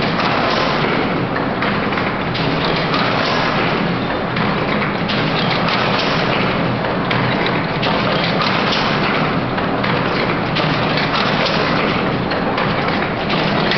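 Marine Fabrics double-knot fishing net making machine (model MINT) running: a loud, dense, steady clatter of many small knocks with no pause.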